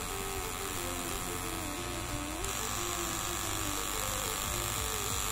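Small brushed DC motor spinning a propeller at close to 6,000 rpm under a MOSFET PWM speed controller, with a steady high whir. About halfway through its whine changes as the duty cycle is stepped from 90% to full 100%.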